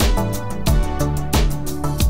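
Background music with a steady beat of about three strokes a second.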